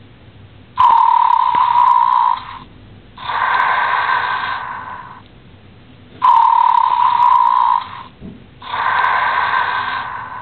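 Snoring sheep plush toy playing its snore: two cycles, each a steady buzzing tone about a second and a half long, then a breathy sound that swells and fades, with a short pause between.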